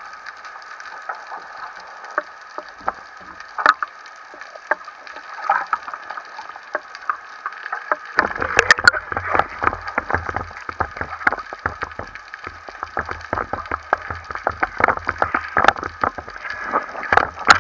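Water sloshing and splashing around an underwater camera at the sea surface, with many sharp clicks and knocks. About eight seconds in it gets busier and louder, with a low rumble underneath.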